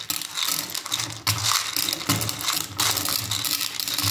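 Loose lead .177 match air-rifle pellets rattling across a plastic pellet-sorting tray and clinking into a metal pellet tin as the surplus is poured off: a dense run of small clicks.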